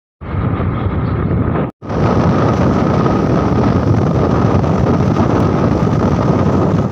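Loud wind buffeting the microphone of a camera moving along a road on a vehicle, a dense rushing with a faint steady whine underneath. It drops out for a moment about two seconds in.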